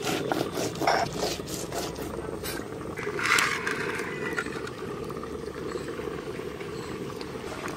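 Stone pestle grinding red chillies on a flat sil grinding stone: a run of gritty scraping strokes, with one louder scrape about three seconds in, then softer rubbing as the paste is gathered off the stone by hand.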